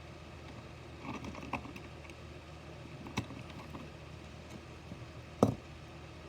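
A few light clicks and taps from a small die-cast toy car being handled and set down, with one sharper knock about five and a half seconds in, over a steady low room hum.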